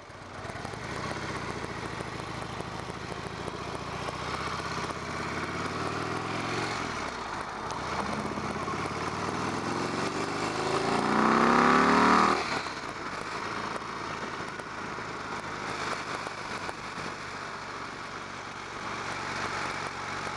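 2016 Harley-Davidson Low Rider S's Twin Cam 110 V-twin, its mufflers' baffle plugs drilled out, pulling away and accelerating through the gears. Its pitch climbs, breaks about seven seconds in, and climbs again to its loudest, then drops sharply about twelve seconds in. It settles to a steady cruise under wind and road noise.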